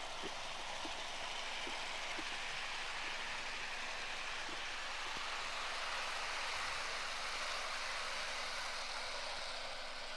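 OO gauge model train, a Princess Royal class locomotive hauling coaches, running along the track: a steady rushing whir of wheels on rail and motor, with a few light clicks in the first couple of seconds.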